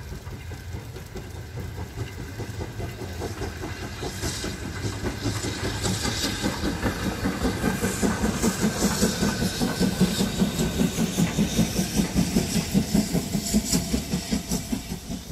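Steam locomotive approaching and passing close by, its rhythmic beats growing steadily louder as it nears, about four a second at the loudest, over a hiss.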